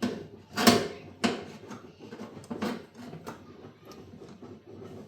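Several short knocks and clunks, the strongest about a second in, from parts of a dismantled washing machine being handled and pressed into place by hand.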